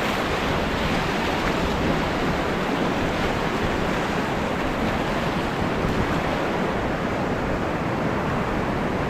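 Steady rushing of river whitewater through a rapid, with wind noise on the microphone.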